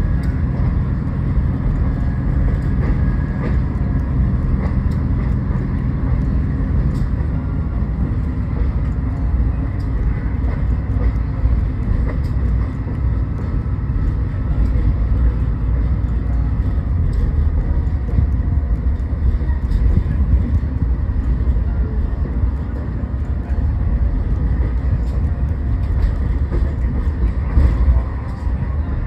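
Inside a Budd RDC rail diesel car under way: the steady low drone of its diesel engines and the rumble of the wheels on the track.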